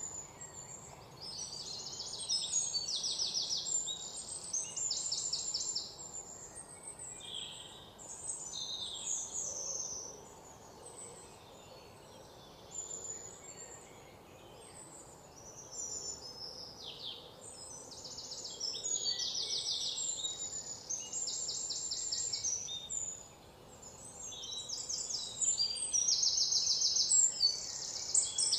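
Several birds singing. High, rapid trills of about a second each repeat throughout, mixed with short whistles that slide downward in pitch.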